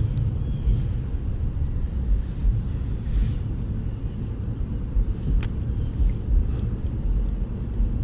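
Wind buffeting the camera microphone, a steady low rumble, with a single sharp click about five seconds in.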